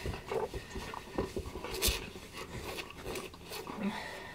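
Two dogs play-fighting: scuffling, light knocks and a few short low vocal sounds from the dogs, with fabric rubbed by hand.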